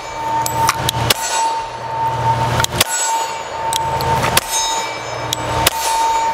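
A 1911 pistol chambered in .45 ACP firing single shots at a slow, even pace: four heavy shots about a second and a half apart, with lighter sharp cracks between them.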